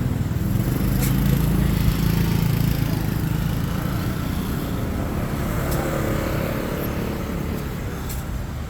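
Street traffic with a motor vehicle engine running close by, loudest in the first few seconds and then slowly fading as it moves off.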